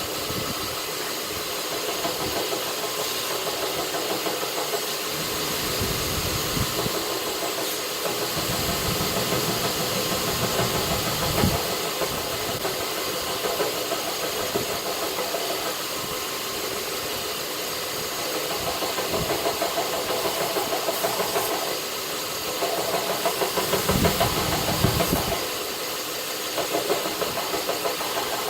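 North Ridge tool grinder running with a steady motor hum and belt hiss, getting louder and rougher in several stretches as a knife blade is worked against the belt.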